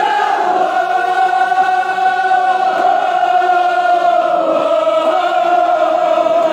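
Group of male voices chanting a Kashmiri marsiya, a mourning elegy, in long drawn-out held notes that slowly bend in pitch.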